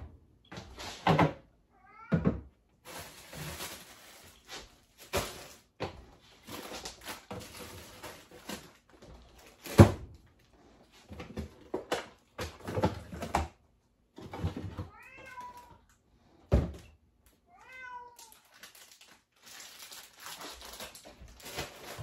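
A house cat meowing several times, short arched meows spaced seconds apart, while sharp knocks and thuds sound around it, the loudest about halfway through.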